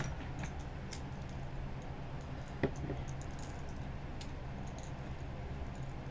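Small precision screwdrivers and tools being sorted and handled, giving scattered light clicks and ticks, with one sharper knock about two and a half seconds in, over a steady low hum.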